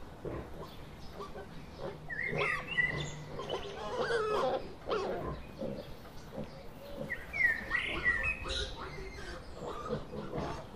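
Wild boar grunting while rooting with its snout in the forest floor, with songbirds chirping twice in the background.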